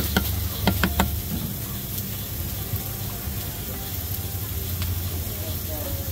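Long eggplants topped with minced pork and chili oil sizzling on a hot grill, with a few sharp clicks in the first second over a steady low hum.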